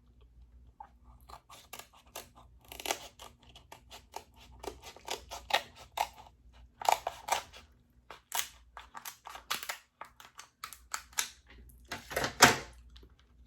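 Eating king crab legs up close: irregular crunching and crackling of the shell, and chewing, with the loudest crack near the end.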